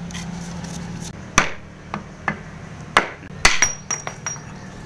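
A hand tool knocking and tapping on the metal parts of a steel bicycle: a string of irregular sharp knocks, a few of them loud, one leaving a brief high ring.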